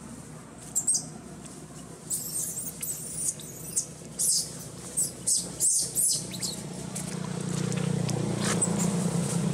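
Newborn long-tailed macaque squealing in a quick run of short, very high-pitched squeaks while its mother handles it roughly. A low steady drone grows in during the last few seconds.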